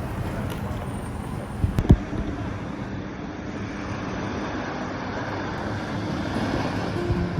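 Steady motor noise mixed with wind rushing over the microphone, with a few sharp knocks about two seconds in.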